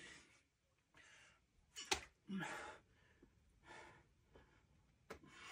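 Faint, short breaths and huffs of a climber straining on a boulder problem, about five spread over a few seconds, one with a brief grunt. A sharp tick sounds about two seconds in.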